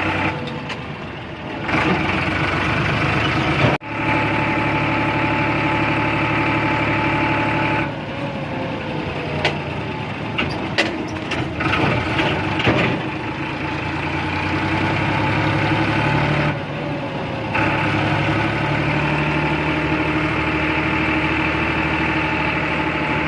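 An engine running steadily at idle, with a few sharp clicks around the middle.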